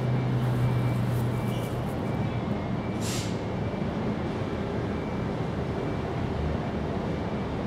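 Steady outdoor background noise with a low hum in the first couple of seconds, and a brief hiss about three seconds in.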